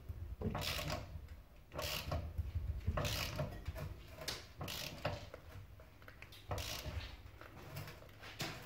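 Metal car parts being handled and shifted by hand, giving about half a dozen irregular clanks and scrapes over a low steady hum.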